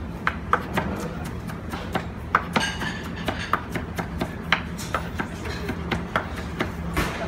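Chef's knife chopping romaine lettuce on a cutting board: irregular sharp chops, about two a second, over a steady low hum.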